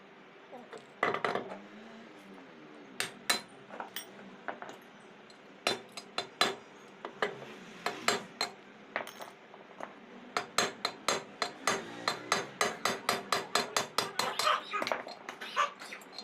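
Metal clinks and knocks of hand tools and steel parts during work on a SEW EuroDrive reduction gearbox. Single sharp knocks come every second or so, then about ten seconds in a fast, even run of clicks, about five a second, lasts roughly four seconds.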